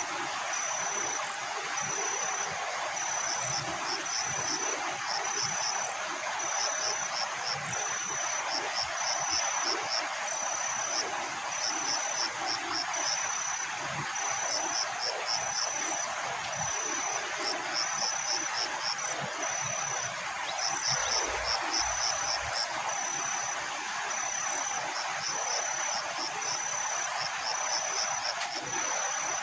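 An insect chirping high and steadily in a repeating pattern, a held note followed by a few quick pulses about once a second, over a steady outdoor hiss.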